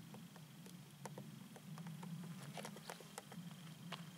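Faint, irregular light ticks and rustles of a kitten moving and sniffing among heather and grass, over a low steady hum.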